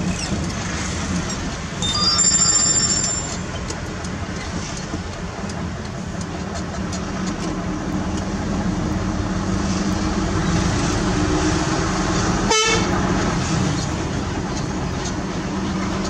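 A heavy vehicle's engine running steadily, with a horn sounding a chord of several notes for about a second, two seconds in. The engine's pitch rises in the last few seconds.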